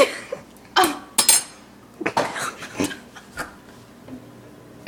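Forks knocking and clinking against dishes: about five separate clinks, one of them ringing briefly.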